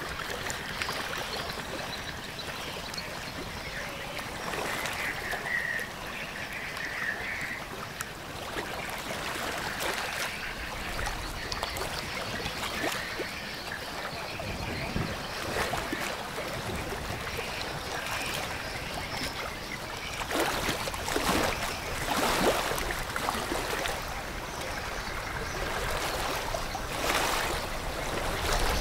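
Steady rush of river water beside a passing container ship, with a few louder surges about two-thirds of the way in and again near the end.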